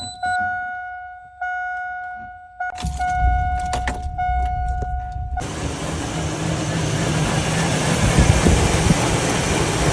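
A Chevrolet Silverado's warning chime dings repeatedly, then the truck's engine cranks and starts a little under three seconds in. After the chime stops near the middle, the engine runs under a loud, even rushing noise; the truck has a random misfire (P0300).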